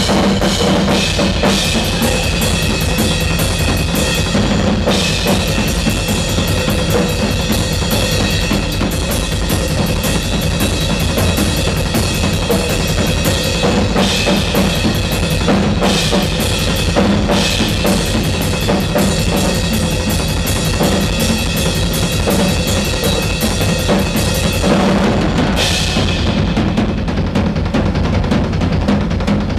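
Live rock drum solo on a ddrum kit: rapid bass drum, snare and tom strikes under a wash of cymbals. The cymbals drop out for moments several times and fall away near the end, leaving mostly drums.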